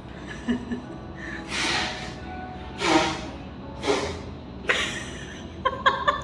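Background music with a person breathing out sharply four times, about a second apart, and a few quick clicks near the end.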